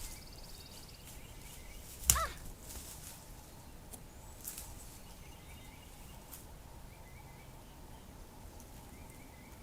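Small birds calling: a fast, high trill at the start and faint chirps later, with one sharp, loud sound about two seconds in.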